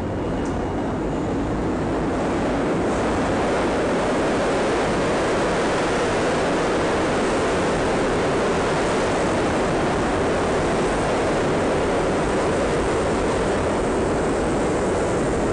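Subway train running through the station: a loud, steady roar that builds over the first couple of seconds and then holds.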